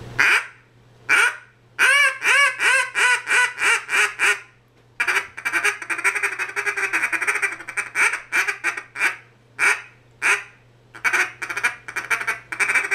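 RNT Alpha 2 double-reed duck call blown to imitate a mallard hen. A couple of single quacks open it, then a string of about eight quacks, a long run of fast short notes, and more single quacks and a closing series.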